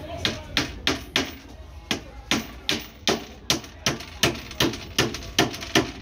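Hammer nailing the wooden boards of a beehive together: about fifteen sharp, even blows at roughly two to three a second, with a short pause a little over a second in.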